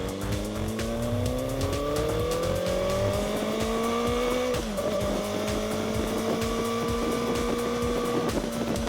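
Kawasaki Ninja ZX-4RR's inline-four engine through its stock exhaust, pulling under acceleration with its pitch climbing steadily. About halfway through the pitch drops sharply at an upshift, then holds and climbs slowly again, with a smaller step near the end.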